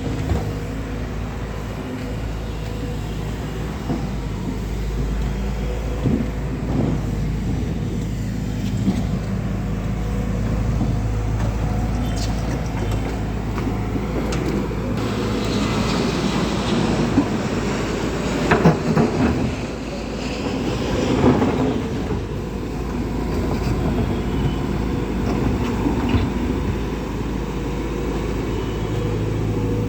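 Heavy diesel engine running steadily with a low drone, with a stretch of louder rattling and clunking about halfway through.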